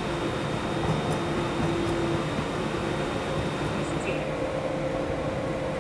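ÖBB Class 1116 Taurus electric locomotive standing with its cooling fans running: a steady whirring hum with faint held tones.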